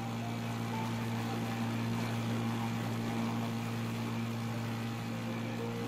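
A steady low droning hum under an even hiss, with a few faint short tones.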